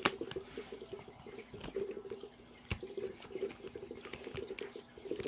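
A few faint clicks and taps of hands gripping and turning a plastic toy can that is hard to open, over a low steady background hum.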